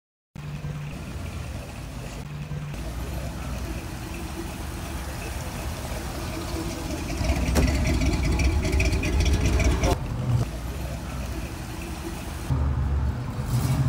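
Cars driving past on a street with their engines running, a steady low rumble. About seven seconds in a louder vehicle passes with a slowly rising engine note, then the sound eases off about ten seconds in.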